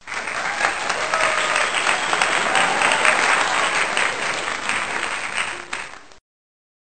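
Applause from a crowd, many hands clapping densely, with faint voices in it. It starts abruptly and cuts off to dead silence about six seconds in, like an edited-in applause sound effect.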